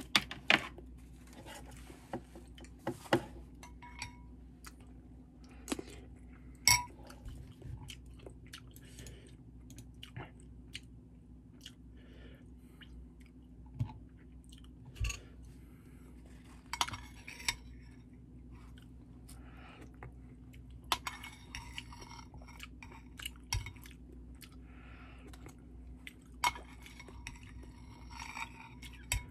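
A person chewing a mouthful of rice soaked in ramen broth close to the microphone, with scattered short clicks of a spoon against a bowl.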